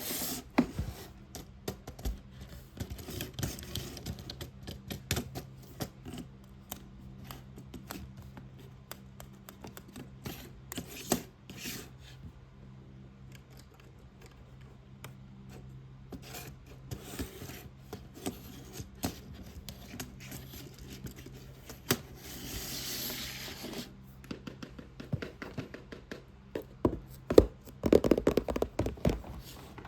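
Fast, irregular tapping and scratching on a box, sharp clicks coming in quick clusters. About two-thirds of the way through there are a couple of seconds of continuous scratching, and near the end a loud, rapid flurry of tapping.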